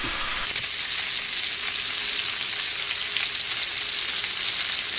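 Chicken thighs frying in hot fat in a stainless steel skillet, browned and turned skin side up: a steady, high sizzle that steps up louder about half a second in.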